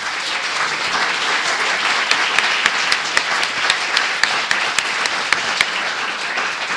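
Audience applauding, a steady wash of clapping with some single sharp claps standing out.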